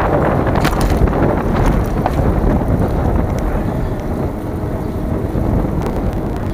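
Heavy wind noise on the microphone, a steady low rumble, with a few light clicks in the first two seconds.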